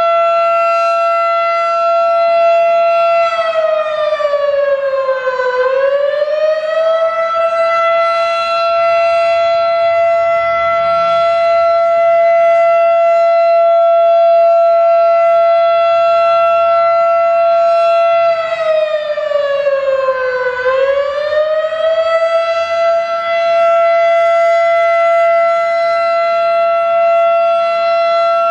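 Fedelcode Type 5 fire siren sounding a loud, steady high tone. Its pitch sags and climbs back twice, about five seconds in and again near twenty seconds.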